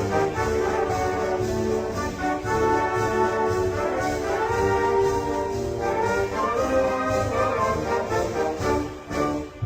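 A brass band playing a melody in held, sustained notes over a dense low bass layer, dipping briefly just before the end.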